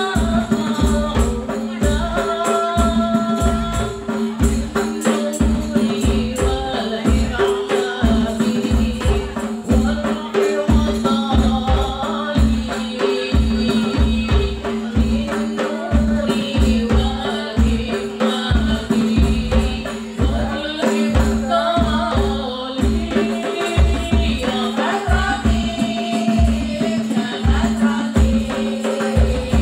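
Hadroh ensemble performing: women singing an Islamic devotional song through microphones and a PA, over frame drums (rebana) keeping a steady, even beat.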